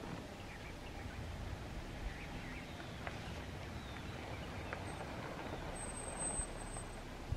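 Quiet outdoor ambience: a low steady rumble with a few faint bird chirps, and a thin high tone for about a second near the end.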